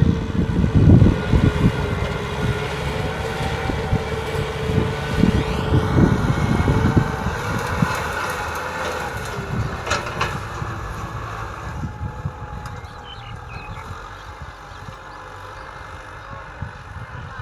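Kubota tractor's diesel engine running while ploughing, with a heavy low rumble that grows fainter over the second half.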